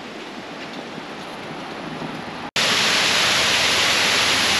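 Rushing water of a waterfall, a steady even rush. About two-thirds of the way through it cuts off abruptly and comes back much louder and fuller, heard close to falls that are running high.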